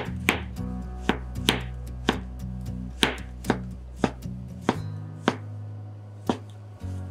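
Kitchen knife slicing shiitake mushrooms thin on a cutting board, each cut ending in a sharp knock of the blade on the board, about two cuts a second and slowing near the end. Soft background music underneath.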